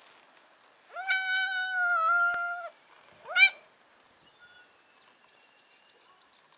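Orange tabby cat meowing twice. The first is one long, level meow lasting nearly two seconds, about a second in. The second is a short, louder meow that rises in pitch.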